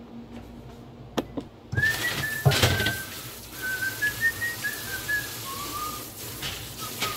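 Kitchen faucet spray running into a stainless steel sink as ice-maker parts are rinsed by hand under it, the water coming on about two seconds in after a couple of clicks. A tune is whistled over the running water.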